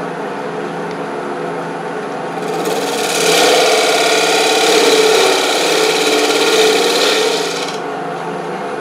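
Wood lathe running with a steady hum while a turning tool cuts the spinning wooden urn; the hand-held tool's scraping cut comes in louder about two and a half seconds in and stops about a second before the end.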